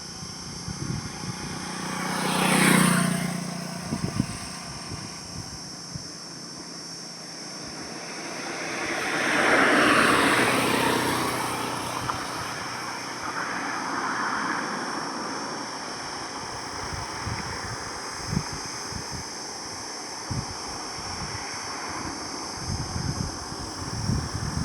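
Highway traffic: vehicles passing one at a time over a steady road hum, one quick pass-by about three seconds in and a longer, louder one swelling and fading around ten seconds in.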